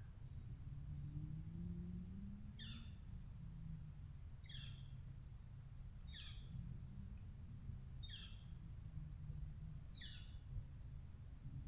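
A wild bird repeating a short call that falls in pitch, five times about two seconds apart, with a few faint high chirps from other birds. A low steady rumble lies underneath.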